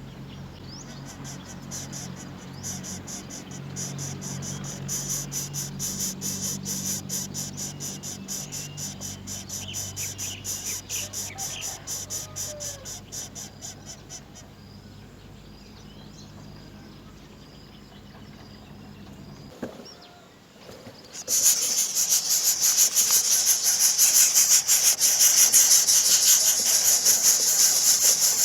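Insects trilling in a fast, pulsing rhythm, with a few short bird chirps. About three quarters of the way through, a much louder, steady, high-pitched hiss begins.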